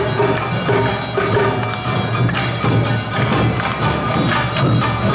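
Live Awa odori festival music (narimono): a hand gong and drums struck in a quick, steady rhythm over held melody notes.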